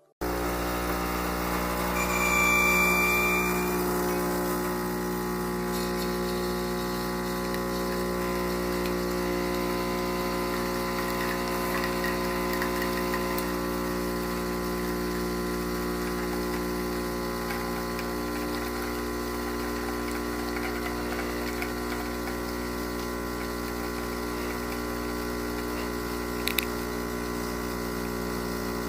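A steady mechanical hum starts suddenly and runs on evenly. It swells briefly with a higher tone about two to three seconds in, and there is a single sharp click near the end.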